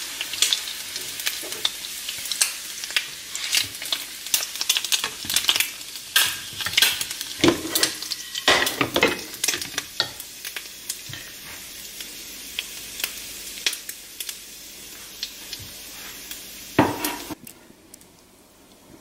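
Hot fat in a small nonstick frying pan sizzling, with many clicks and scrapes of a plastic spatula and the pan being handled. The sizzle thins out over the second half, and a last knock near the end is followed by quiet.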